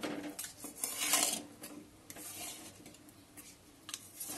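Metal spatula scraping and rubbing against the inside of a metal kadai as it pushes fish and bay leaves around in oily masala, in irregular strokes that are loudest about a second in.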